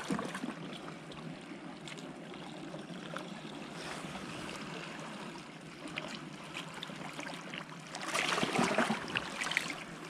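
Shallow seawater lapping and trickling among shore rocks, with a louder stretch of splashing about eight seconds in.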